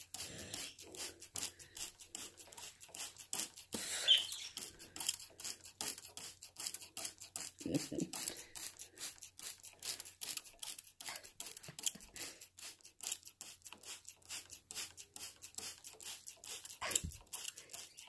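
Hand-held spray bottle squirted over and over in quick succession, several sprays a second, misting water over a cockatiel.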